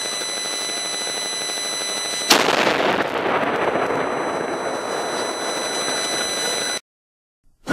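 Antique cannon firing a single salute shot about two seconds in: a sharp bang followed by a long echoing rumble that slowly fades, then the sound cuts off suddenly near the end. It is the third round of a three-shot salute.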